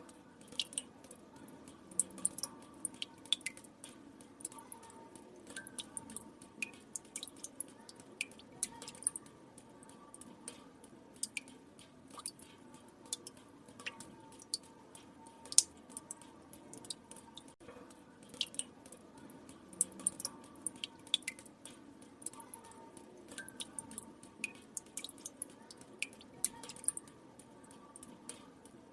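Water drops falling into still water: irregular, sharp plinks, several a second, over a faint steady background.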